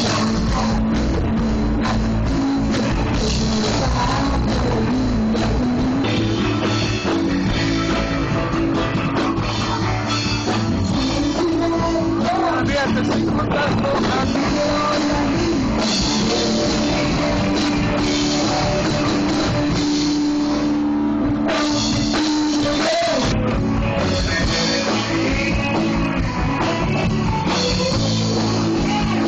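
Live rock band playing through a PA system: electric guitars, keyboard and drum kit, with a singer.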